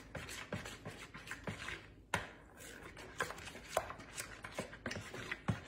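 A spoon stirring thick pumpkin pudding in a bowl, with irregular light taps and scrapes against the bowl several times a second.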